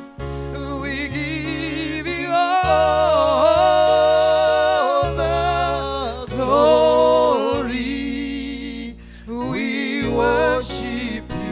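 Gospel worship music: a voice singing long held notes with a wavering vibrato over sustained low chords that change every second or two, with brief pauses between phrases.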